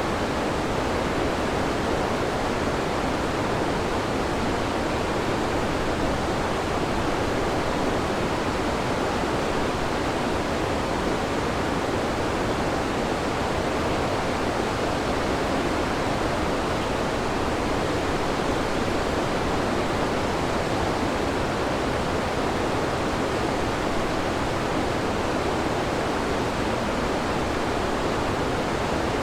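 Waterfall, a steady, unbroken rush of falling water with the most sound in the middle range.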